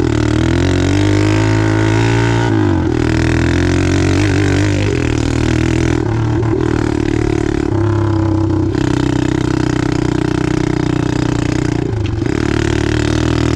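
Apollo 125cc pit bike's single-cylinder four-stroke engine running under way, its pitch rising and falling with the throttle, with several brief dips as the throttle is eased off.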